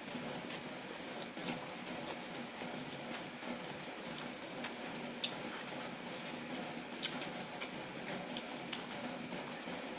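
Close-up eating sounds of noodles being eaten by hand: scattered soft mouth clicks and smacks of chewing, over a steady background hum.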